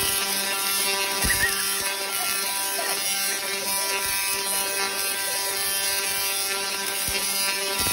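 Tesla coil firing continuously, its lightning-like spark discharges making a loud, steady electric buzz, with a few sharp crackles within it.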